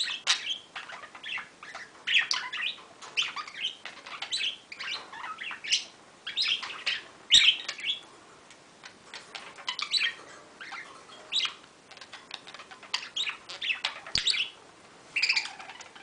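Pet budgerigars warbling and chirping in a fast, broken chatter of high notes with short pauses between bursts.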